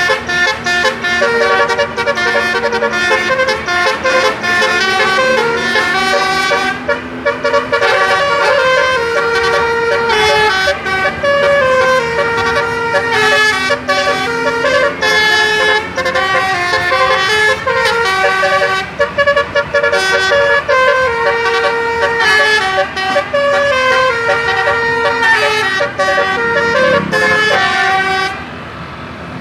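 Indonesian bus 'telolet' musical air horn playing a long, loud run of stepped notes in a tune, several horn tones sounding together. The horn stops about a second before the end, leaving the bus's engine and road noise.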